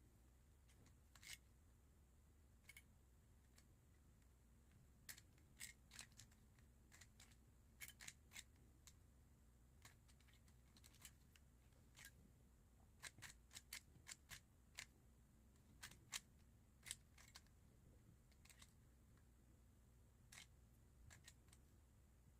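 A plastic Rubik's cube being turned by hand: irregular sharp clicks as its layers snap round, sometimes several in quick succession.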